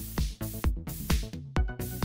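Background electronic dance music with a steady beat, about two thumps a second.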